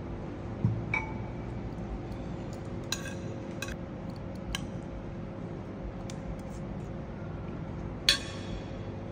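Metal cutlery clinking and scraping on a ceramic plate during a meal: a dull knock, then a scattering of light clinks, with the loudest, ringing clink near the end. A steady faint hum runs underneath.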